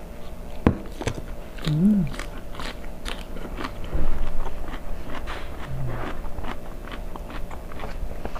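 A person chewing and biting into a meal of fried noodles and rice close to the microphone, with crunching and wet mouth clicks throughout. There is a short hummed sound about two seconds in.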